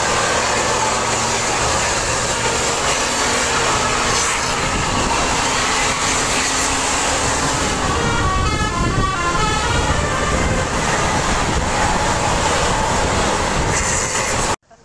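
A bus engine runs loud and steady while a multi-note telolet horn plays a quick run of stepped notes about eight seconds in. The sound cuts off sharply near the end.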